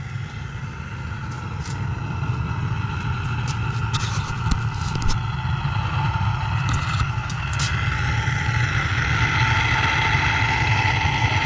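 Propane furnace burner firing into the furnace chamber, a steady roar that grows slowly louder.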